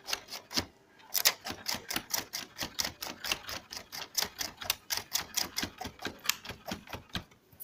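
Rapid, even clicking from a Canon iP4980 inkjet printer's drive-gear mechanism, about seven clicks a second, with a short pause about a second in.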